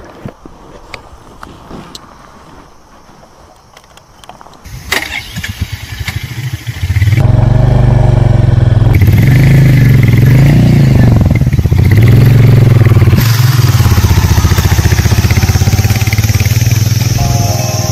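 Royal Enfield Hunter 350 motorcycle's single-cylinder engine starting up close by and running loudly from about seven seconds in, its revs rising and falling a few times before settling steadier; a few clicks come before it starts.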